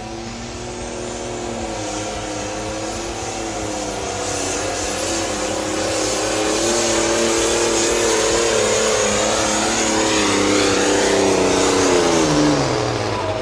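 Ford 9600 pulling tractor's diesel engine at full throttle hauling a weight-transfer sled, getting steadily louder, then the revs drop away sharply near the end.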